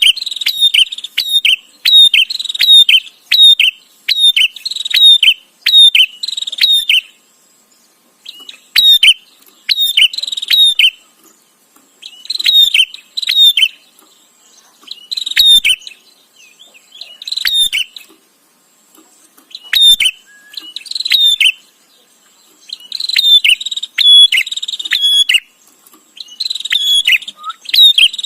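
Prinia (prenjak) calling in rapid, sharp chipping notes, about three a second, in bouts of a few seconds broken by pauses of a second or two.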